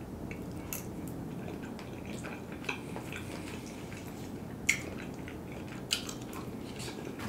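Quiet eating sounds: a fork picking food out of a small plastic cup and a forkful taken into the mouth, heard as a few short, sharp clicks and smacks over a steady low background hum.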